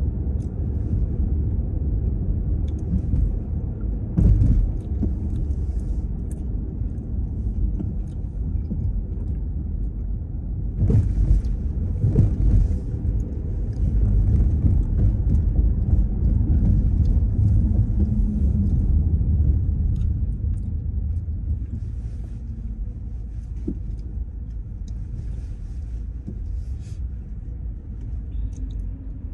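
Low, steady rumble of a car driving, with a few louder thumps about four and eleven seconds in, and the rumble easing off toward the end.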